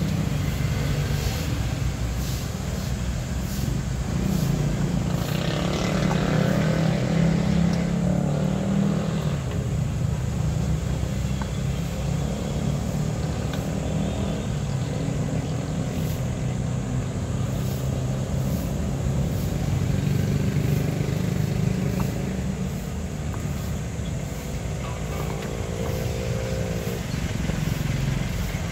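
Steady low rumble of motor-vehicle engines running, swelling a few seconds in, with a brief engine tone near the end.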